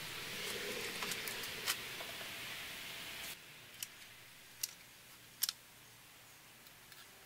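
A few sharp, isolated clicks and taps of hand tools being handled on a solid-surface countertop. A steady background hiss cuts off abruptly about three seconds in, and it is quieter after that.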